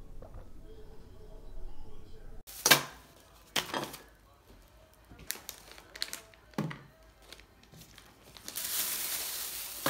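Plastic snack packet of jerky crinkling as it is handled: from about two and a half seconds in, a series of sharp rustles, then a longer, steadier rustle near the end.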